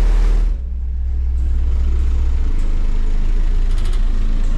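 Pickup truck's car-audio subwoofers playing a very loud, deep steady bass tone for a sound-pressure-level meter reading. The lowest note cuts out about half a second in, and the remaining bass drops lower around two and a half seconds in.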